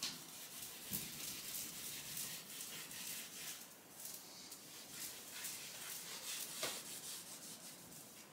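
A cloth wiping down a wardrobe shelf: repeated hissing rubbing strokes, with a few light knocks against the shelf.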